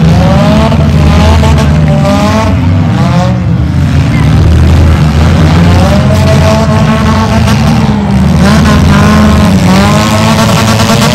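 Engines of a pack of demolition derby cars running loudly together, a steady low rumble with revs that repeatedly rise and fall as the cars drive and push against each other.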